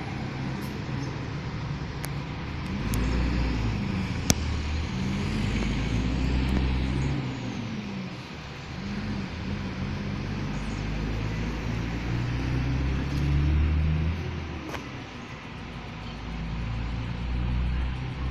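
Mercedes-Benz O500 RS bus's diesel engine running loud, its revs rising and falling several times. There is one sharp click about four seconds in.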